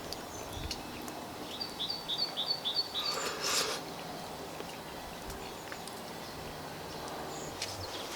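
A small songbird singing a quick run of about six repeated high notes, about four a second, over steady outdoor background noise. A brief rustle follows just after the song.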